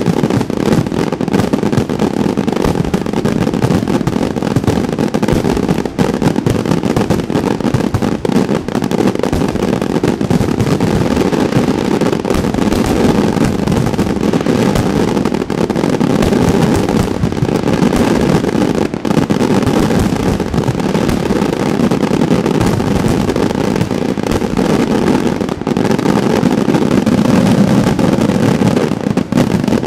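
Aerial firework shells bursting in a dense, continuous barrage: many overlapping bangs and crackles with no let-up.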